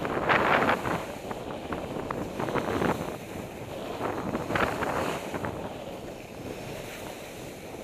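Skis sliding and carving turns on soft spring snow: a scraping hiss that swells with each turn, mixed with wind rushing over a helmet-mounted camera's microphone.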